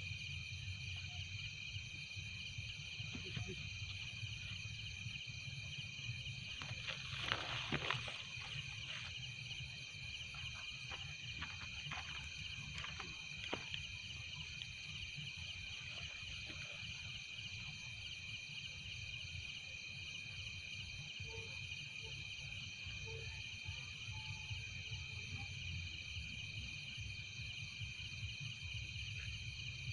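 Night-time insect chorus: several steady high trills at different pitches, with a fainter pulsing trill above them, over a low steady rumble. A brief burst of rustling about seven seconds in is the loudest moment.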